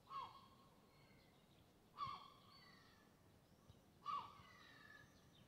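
A bird calling three times, about two seconds apart, each a short call that drops in pitch, with fainter whistles between.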